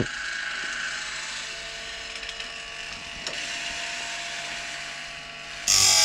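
Grindlux 4000 bandsaw blade sharpener running, its motor and feed mechanism making a steady hum as the blade indexes to the next tooth. Near the end the grinding wheel bites the tooth with a loud grind for about half a second, throwing sparks. The wheel is still not reaching the gullet.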